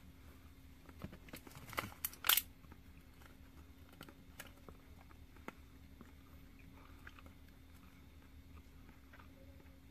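Crackling and clicking of a thin plastic food container being handled, in a quick cluster that is loudest about two seconds in, then a few faint scattered ticks.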